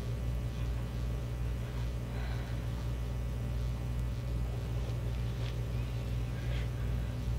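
Steady low electrical hum with a faint hiss, and a few faint brief sounds about two, five and a half and six and a half seconds in.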